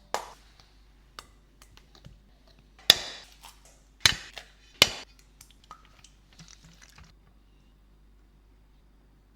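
Kitchen utensils and dishes knocking and clinking: scattered light ticks, then three sharp knocks within about two seconds, followed by faint rustling.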